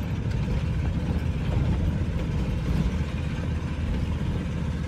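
Old camper van's engine labouring in first gear up a steep hill, a steady low rumble heard from inside the cab.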